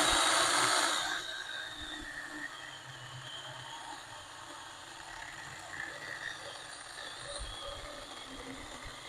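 Small 20-volt cordless electric chainsaw (4-inch Saker) cutting through a pecan log, the motor and chain whining with a pitch that wavers under the load of the cut. Loudest for about the first second, then steady.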